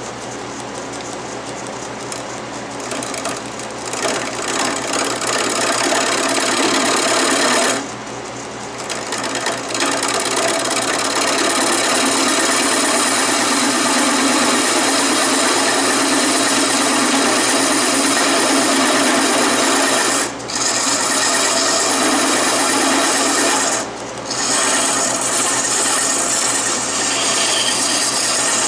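Wood lathe running while a gouge cuts a spinning wooden handle: a steady rasping cut over the hum of the lathe motor. The cut starts about four seconds in and breaks off briefly three times as the tool lifts from the wood.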